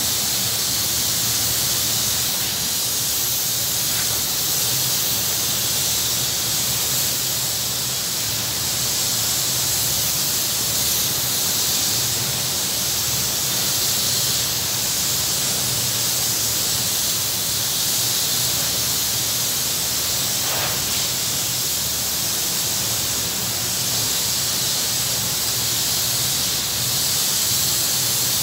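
Gelcoat spray gun hissing steadily as it sprays gelcoat, with a low hum underneath.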